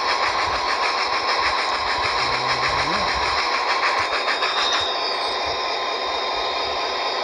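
Sampled locomotive sounds from a phone throttle app: a steam locomotive chuffing in a rapid even rhythm over a running EMD diesel engine, as both throttles are wound down to zero. The chuffing stops about five seconds in, leaving a steady engine sound.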